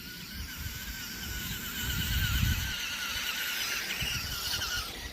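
Electric motor and gears of a remote-control rock crawler whining steadily, the pitch wavering slightly as the throttle changes, with a low rumble about two seconds in.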